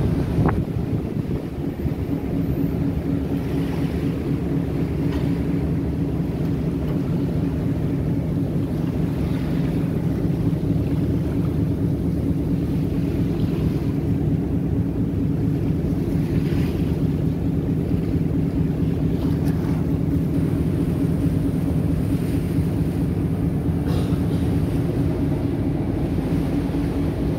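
Star Ferry's engine running steadily with a low hum while under way, mixed with the wash of harbour water and wind on the microphone.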